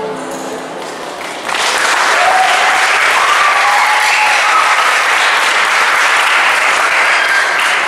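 Audience applause with a few shouts breaking out about a second and a half in, just after the last held chord of the vocal group fades away.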